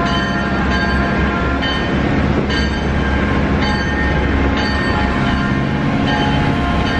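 A train passing close by: steady locomotive rumble and rail noise, with ringing tones that come and go about once a second.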